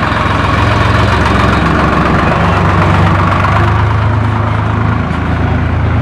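Swaraj 735 FE tractor's three-cylinder diesel engine idling loudly and steadily.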